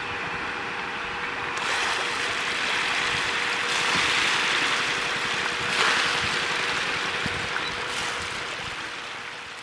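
A dense shoal of catfish thrashing and splashing at a pond's surface as they feed on scattered pellets: a continuous churning, splashing water noise that swells about a second and a half in and tapers off near the end.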